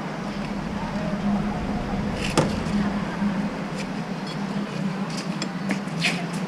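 Mini excavator's diesel engine running steadily, with one sharp knock about two and a half seconds in and a few lighter clicks near the end.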